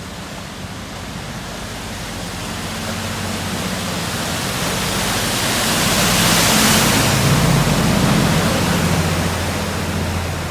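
Canal water rushing and splashing hard, a steady noise that swells to its loudest about six to seven seconds in and then eases, with a low hum beneath.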